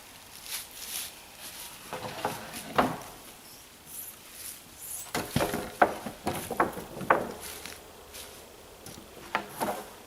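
A series of light knocks and clicks with rustling between them, irregular and bunched in clusters about two seconds in, from about five to seven seconds, and again near the end.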